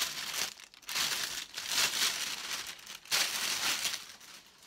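Polythene mailer bag crinkling in several bursts of about a second each as it is crumpled and handled.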